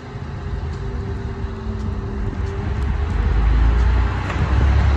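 DSB IC3 (MF) diesel multiple unit running along the platform past close by, its low rumble building and growing loud as the cars go by in the second half.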